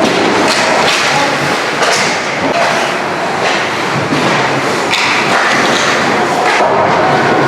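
Ice hockey rink game sounds: a run of sharp thuds from puck and sticks striking the boards and ice, several seconds apart, over steady loud arena noise.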